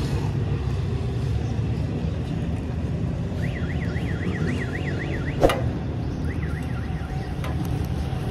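Steady rumble of busy street traffic. A warbling electronic alarm or horn sounds twice, its pitch swinging rapidly up and down, and a single sharp metallic knock comes about five seconds in.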